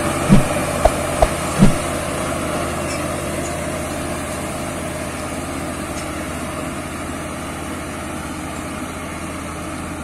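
HAMM tandem-drum asphalt roller's diesel engine running steadily as it compacts fresh asphalt, slowly fading as the roller moves away. A few short knocks sound in the first two seconds.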